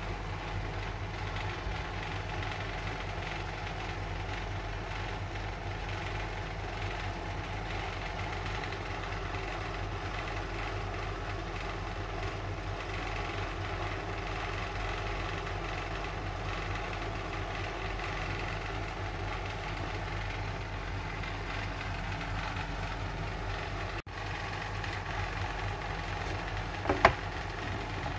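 A steady machine hum with a constant low drone, briefly breaking off once; about a second before the end comes a single sharp knock.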